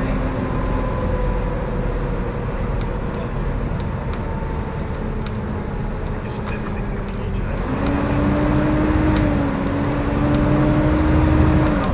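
Volvo B7TL double-decker bus on the move, heard from inside, with the strong vacuum-cleaner-like "hoovering" whine this chassis is known for over steady road noise. The whine steps up in pitch and loudness about two-thirds of the way in as the bus pulls harder, then falls back near the end.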